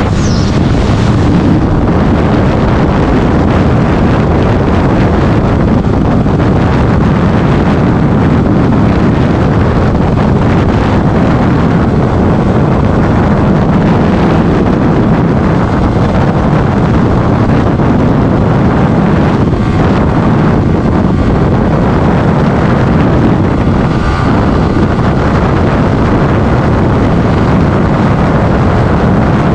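Steady wind noise on a motorcycle rider's microphone at riding speed, with the bike's engine and road noise underneath.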